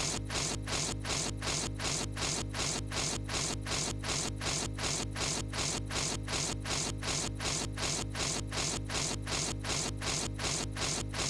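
Cartoon puppy's licking sound effect, looped over and over in an even rhythm of about three slurps a second over a steady low hum.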